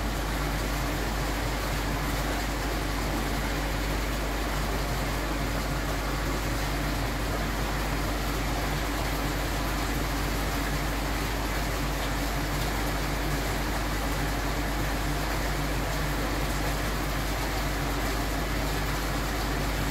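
Steady low electrical hum with an even hiss over it, unchanging throughout, with no distinct knocks or clicks.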